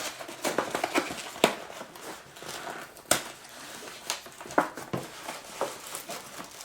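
Food packaging crinkling and rustling as it is handled and opened, with irregular sharp crackles.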